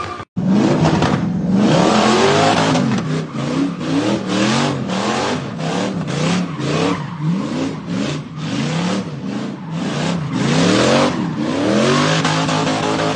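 A performance car's engine and exhaust revving hard again and again. The pitch climbs and drops back in over a dozen quick blips, roughly one or two a second.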